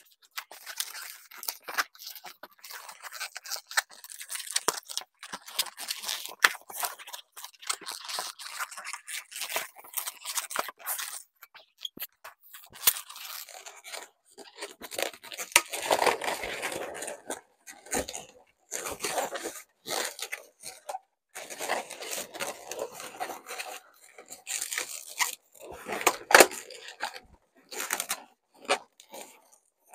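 Latex balloons being handled, twisted and pushed into place: irregular rubbing, scraping and crinkling of rubber, with a sharp click near the end.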